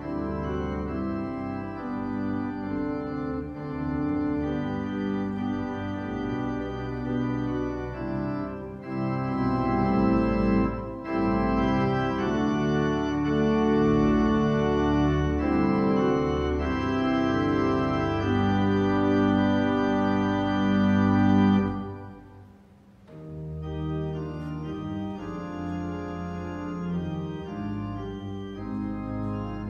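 Organ music playing slow, sustained chords as the closing postlude after the benediction. It breaks off briefly about three-quarters of the way through, then carries on.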